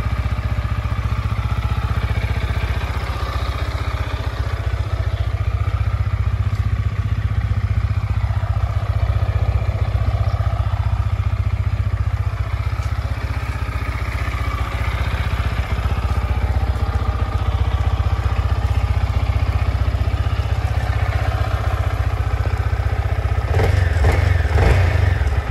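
Yamaha R15 single-cylinder motorcycle engine idling steadily, a low even rumble. It gets louder for the last couple of seconds.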